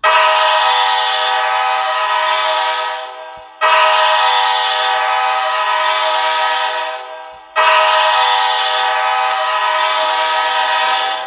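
San Diego Gulls hockey goal horn blowing three long blasts of nearly four seconds each. Every blast starts abruptly and tails off before the next.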